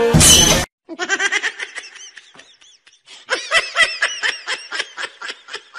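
A brief loud burst of noise at the very start, then a person laughing in quick, high-pitched pulses, several a second, strongest in the second half.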